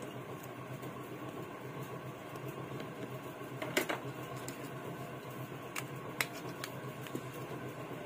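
Steady fan-like hum, with a few light clicks and taps from a mobile phone's plastic housing and small parts being handled: a louder knock about four seconds in and three small clicks a couple of seconds later.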